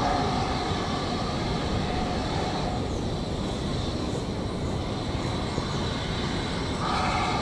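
Steam locomotive hauling a train of coaches slowly through the station, its running and the rolling stock making a steady rumble and hiss. A steady high tone sounds for the first few seconds and again briefly near the end.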